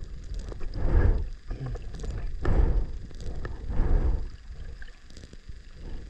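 Muffled rush of water over a camera held in the sea, swelling and falling in three surges about a second and a half apart, with faint clicks between them, in time with a swimmer's strokes.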